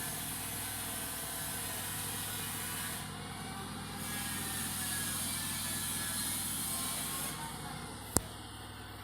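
LG front-load washing machine running with a steady hum and a high hiss. The hiss drops out for about a second partway through and stops near the end, and there is a single sharp click shortly before the end.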